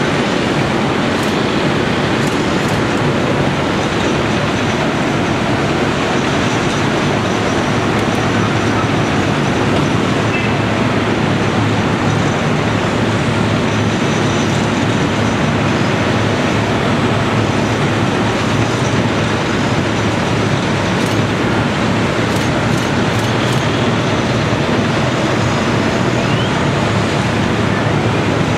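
Caterpillar 345C L excavator's diesel engine running steadily, a constant loud mechanical drone with no breaks.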